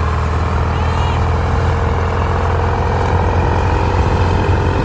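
Clayson 8080 combine harvester running steadily, its engine a loud, even low drone with the machinery's hum over it.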